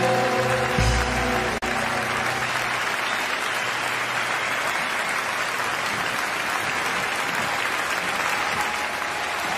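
Concert audience applauding; the last held notes of the song fade out in the first second and a half, then steady applause.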